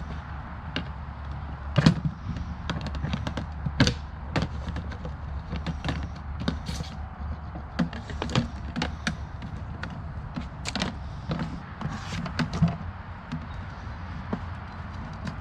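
Irregular knocks, taps and clatter, several louder thumps among them, over a steady low hum.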